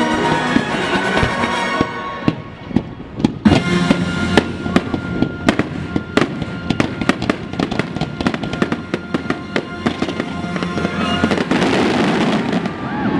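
Fireworks going off in quick succession, many sharp bangs and crackles, over the show's orchestral music. The music is dense at first, and the bangs take over about two seconds in.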